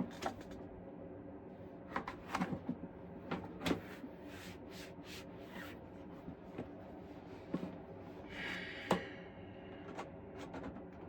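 Scattered knocks and clicks of trim tray parts being handled and fitted together, with a short scraping rub about eight seconds in.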